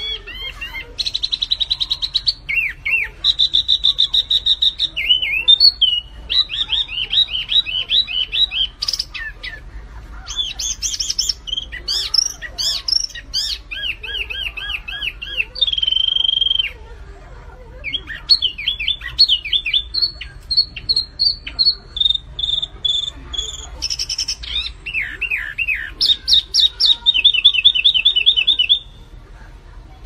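Small caged songbird singing a long, varied song of fast trills, runs of repeated rising and falling notes and short held whistles, broken by brief pauses between phrases.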